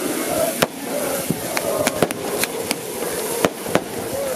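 Firecrackers going off at irregular intervals, about nine sharp bangs in four seconds, over the steady noise of a football crowd celebrating a championship.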